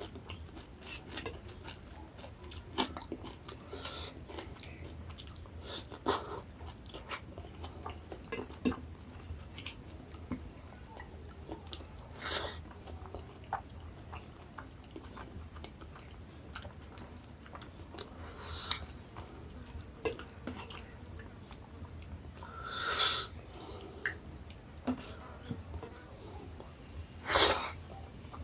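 Close-up eating sounds: chewing and mouth clicks and smacks, scattered throughout, with four louder short noises spread through the second half.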